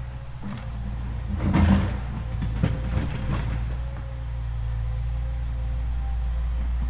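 Toy RC excavator's small electric motors running with a steady low hum, with a cluster of clattering knocks between about one and a half and three and a half seconds in.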